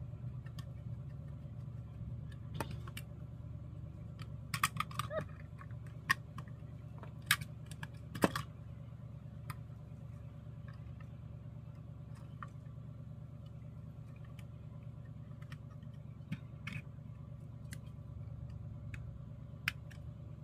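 Irregular small clicks and taps of a screwdriver, screws and a plastic mounting bracket being worked on a car stereo head unit. There is a quick cluster of clicks about four and a half seconds in, a few single louder clicks soon after, then sparser faint ones over a steady low hum.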